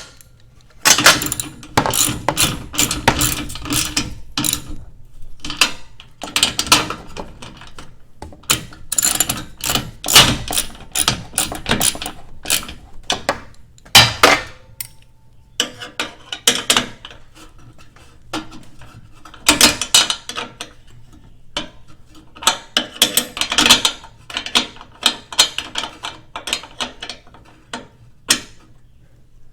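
Ratchet wrench clicking in repeated runs of quick strokes, with short pauses and a few louder knocks between them.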